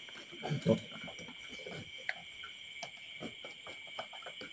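Chicken eggs being placed and shifted by hand in a foam-box incubator, with irregular soft knocks and clicks as the shells touch each other and rub on the plastic water bag. The loudest knock comes near the start.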